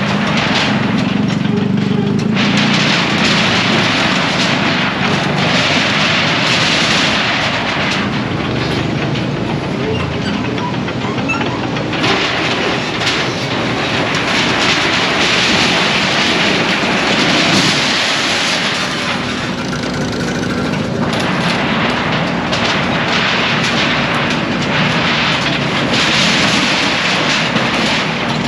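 Building demolition: a loud, unbroken clatter of dense knocking and crashing, with a low hum running underneath.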